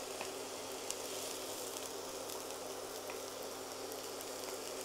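Chopped onion sizzling steadily in hot olive oil in a frying pan, with a few faint clicks of a wooden spatula against the bowl it is scraped from.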